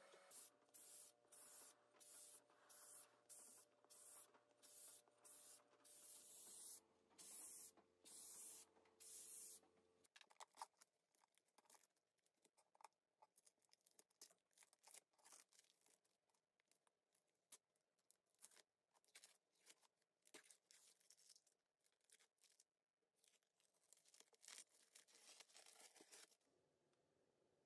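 Quiet painter's tape work on a cast iron tree stand: a run of short ripping strokes about every half second, then faint irregular crackling as the tape is peeled off the freshly painted surface.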